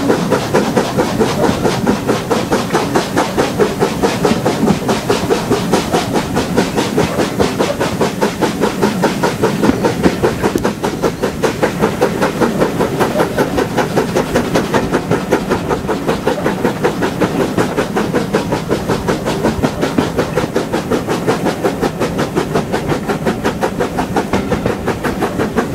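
LMS Black Five two-cylinder steam locomotive 45212 working along under steam, its exhaust beating in a fast, even rhythm of about four to five beats a second, heard from a coach window behind the engine over the running noise of the coaches on the rails.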